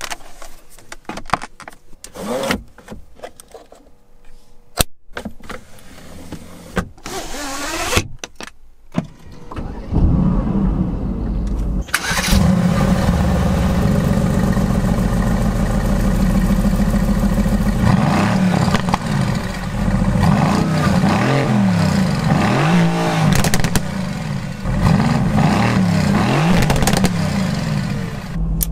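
Mercedes-AMG GT C's twin-turbo V8 starting about ten seconds in and settling into a steady idle from the exhaust. Around twenty seconds in it is revved several times, the pitch rising and falling with each blip, before it drops back to idle. Before the start there are scattered clicks and short whirs.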